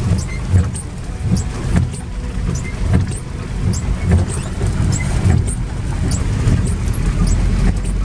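A van driving on wet streets, heard from inside the cabin: a steady low engine and road rumble with irregular low thumps, and light scattered ticks of rain on the windshield.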